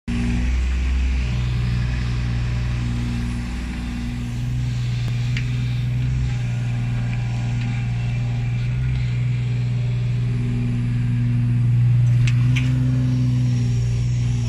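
Kubota mini excavator's diesel engine running under hydraulic load while it digs and swings soil into a truck bed, its note rising and falling with the work. A few sharp knocks from the bucket and arm are heard around the middle and near the end.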